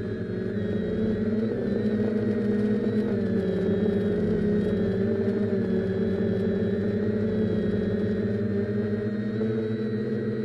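Multirotor drone's electric motors and propellers whining steadily, heard from the camera on board. The pitch dips about three seconds in and rises again a couple of seconds later.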